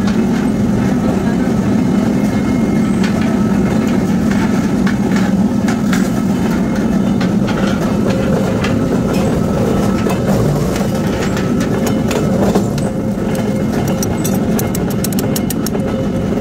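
Steady loud drone of forge-shop machinery running, the furnace's blower and the forging press's motor, with light metallic clinks of tongs and hot billet on steel and a quick run of ticks near the end.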